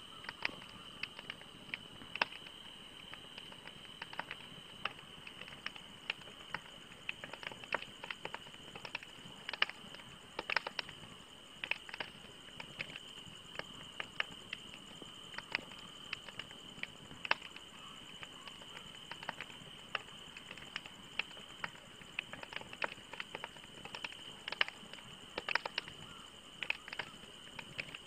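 Wood campfire crackling: irregular sharp pops and snaps from the burning logs, some coming in quick clusters, over a low steady hiss.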